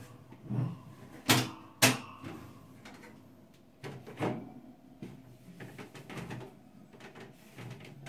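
Freezer shelves and fittings being handled while the inside of the freezer is wiped clean: two sharp knocks about a second and a half in, a smaller knock later, and lighter taps and rubbing between.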